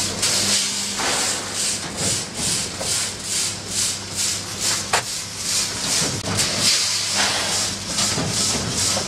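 VT82 vertical packaging machine with its multihead weigher running: a hiss pulsing a few times a second over a steady low hum, with one sharp click about halfway through.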